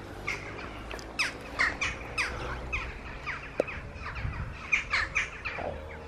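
Songbirds singing: a busy run of short, quick chirps that fall in pitch, several a second. One sharp click comes a little past halfway.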